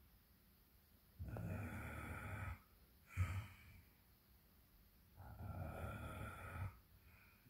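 Snoring: two long, rasping snores about four seconds apart, each lasting over a second, with a short, sharp snort of breath between them.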